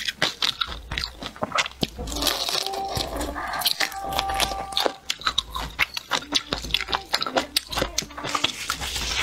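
Close-miked eating: biting into and chewing a piece of spicy bullfrog coated in a crumbly chili, sesame and peanut powder, with dense irregular crunching clicks and wet mouth sounds.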